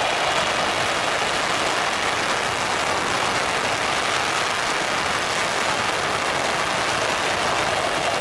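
Steady hiss of heavy rain falling, with the engines of an Airbus A320 taxiing at low power underneath.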